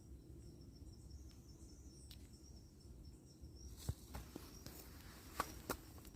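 Faint outdoor ambience: a low rumble with a thin, steady, high insect tone that stops a little past halfway, then several sharp clicks and snaps.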